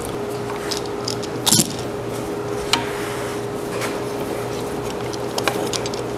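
Metal clamps clicking and clinking as they are set and adjusted on a glued wooden box lid: a handful of sharp clicks, the loudest a double click about a second and a half in, over a steady hum.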